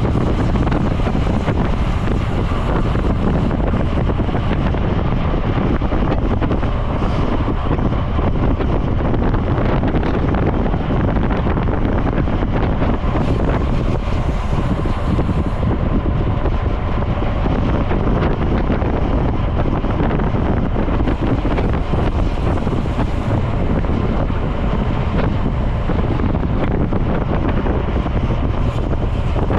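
Steady wind noise on a bicycle-mounted camera's microphone as a road bike rides along at speed, a constant low rush with no breaks.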